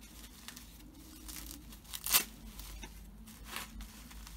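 White wrapping paper around a boxed action figure being unfolded and crinkled by hand, in irregular rustles. There is one sharper, louder crackle about two seconds in.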